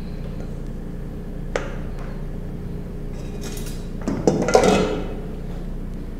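Stainless steel mixing bowl and silicone spatula knocking and scraping as cream cheese frosting is emptied into a plastic piping bag: a single sharp tap about a second and a half in, then a burst of metallic knocks and clatter around four to five seconds in, over a steady low hum.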